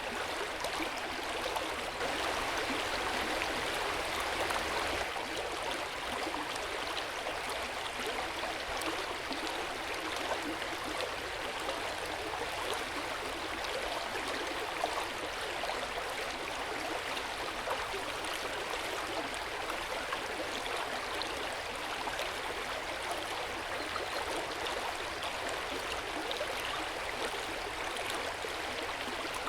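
Hot spring water running steadily into an open-air bath, a continuous gentle flowing and gurgling.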